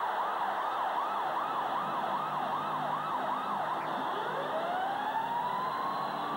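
Arena goal siren signalling a home goal, yelping in quick rising-and-falling whoops about three a second, then switching about four seconds in to a slow rising wail. A cheering crowd is heard underneath.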